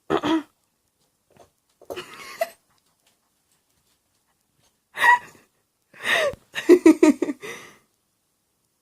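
Short, breathy human vocal sounds, like gasps or breaths, in several brief bursts, the longest cluster about six to seven and a half seconds in.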